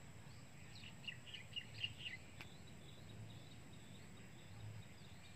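Faint bird chirping, a quick run of short high notes about a second in and again near the end, over a quiet open-air background; a single sharp tick about halfway through.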